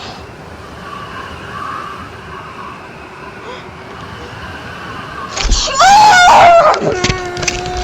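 A steady hiss, then about five seconds in a thump and a loud, sliding screaming cry, ending in a held steady tone.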